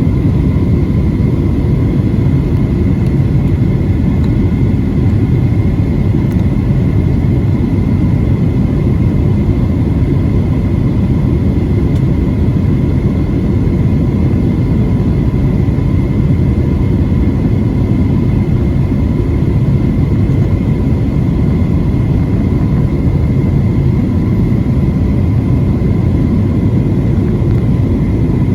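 Cabin noise inside a Boeing 737-700 airliner in flight: a loud, steady low rumble of its two CFM56 turbofan engines and the airflow, with a faint steady whine running through it.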